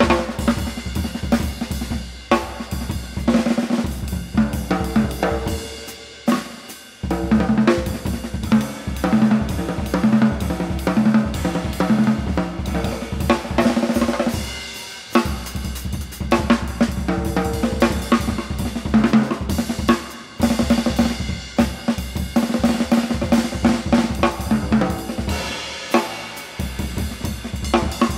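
Drum kit played live in a busy jazz passage of snare, bass drum, hi-hat and cymbals, with a few short breaks.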